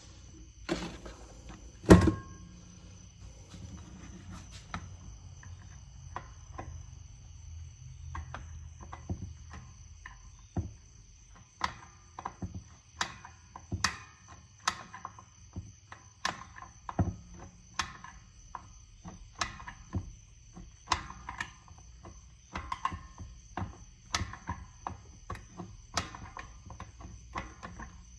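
Drum brake shoe adjuster being turned to take up shoe clearance on a loose drum brake, metal clicking about one to two times a second through the second half. There is a single louder knock about two seconds in.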